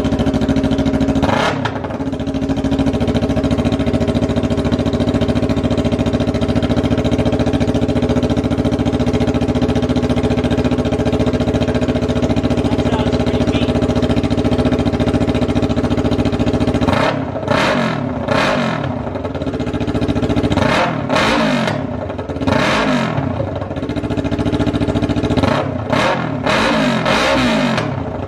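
2019 Yamaha R3's parallel-twin running without its muffler on bare header pipes. Just started, it idles steadily for about the first two-thirds, then is revved in a string of quick blips to the end. Pretty loud, as an open pipe with no slip-on is.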